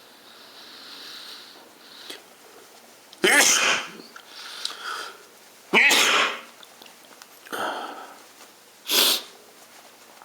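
A person sneezing three times, deliberately induced, the sneezes coming about every two and a half to three seconds, with softer breathy intakes between them.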